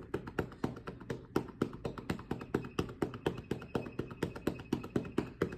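Cupped hands patting quickly and steadily on a patient's chest wall, about five strikes a second. This is manual chest percussion over the right middle lobe to loosen mucus for airway clearance.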